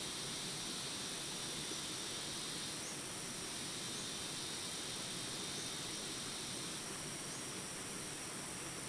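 Insects buzzing steadily and high-pitched over a background hiss of outdoor ambience; a lower layer of the buzzing drops out about seven seconds in.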